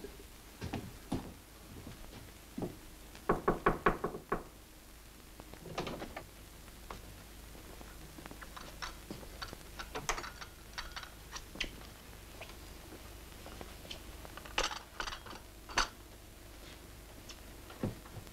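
A quick run of about five knocks on a door, the loudest sound here, followed by scattered light clicks and taps.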